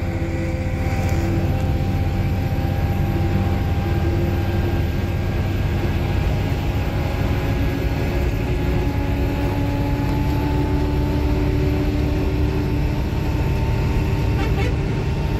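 Inside an AC coach on the highway: the bus's engine and road noise make a steady low drone with several faint engine tones that rise slightly in pitch near the end.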